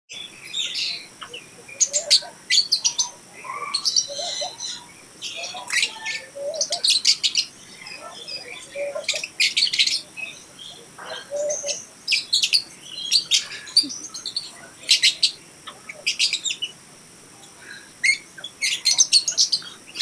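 A flock of Fischer's lovebirds chattering with shrill, high chirps in quick clusters, with short pauses between them.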